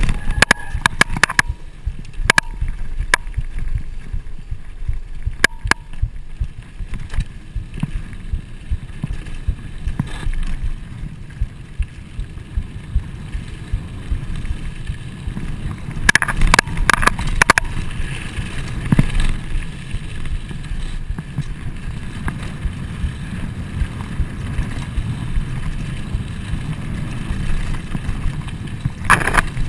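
Trek Fuel EX full-suspension mountain bike riding fast down a dirt trail: a steady low rumble of wind and tyres on the GoPro's microphone, broken by clicks and rattles of the bike over bumps. There is a louder burst of clatter about halfway through, and another near the end.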